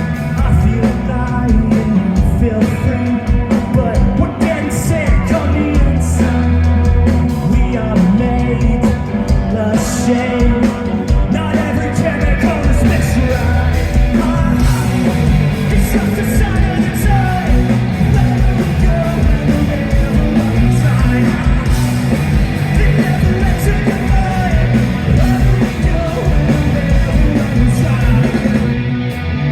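Rock band playing loud live, with electric guitar, bass and drums, and a singer's voice over parts of it.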